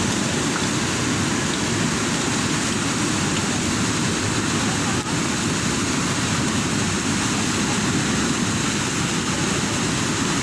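Swollen river in flood, its fast water rushing in a steady, unbroken roar.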